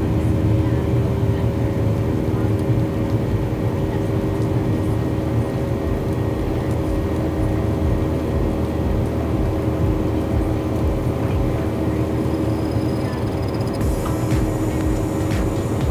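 Steady in-flight cabin drone of a Boeing 737 airliner: low rumble of the engines and airflow with a constant hum.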